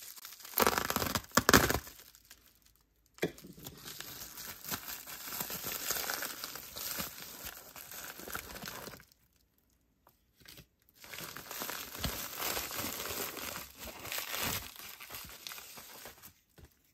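Bubble wrap being torn open in a short sharp burst about a second in, then crinkling as hands unwrap it, in two long stretches with a pause near the middle.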